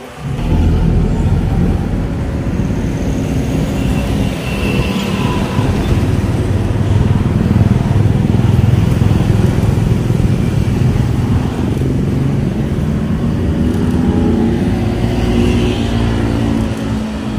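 Road traffic driving past close by: motor vehicle engines and tyres making a steady low noise that rises sharply about half a second in.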